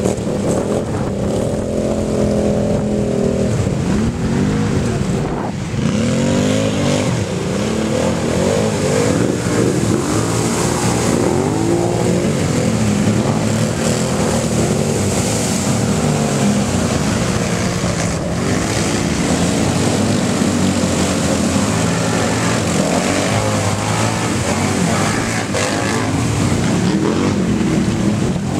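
Several ATV engines revving up and down, their pitches rising and falling over one another as the quads plough through shallow water. The water splashes and sprays around them.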